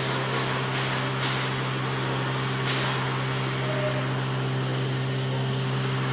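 Flatbed laminator running with a steady low electric hum, with a few short hisses in the first three seconds.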